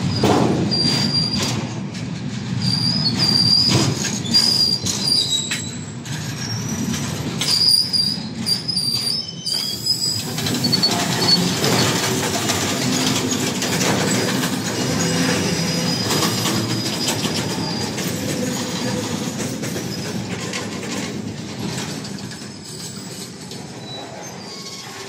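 Wheels of loaded BLC container flat wagons rolling past on the rails: a steady rumble with scattered knocks and clicks, and high wheel squeals through the first ten seconds or so. It grows gradually quieter toward the end.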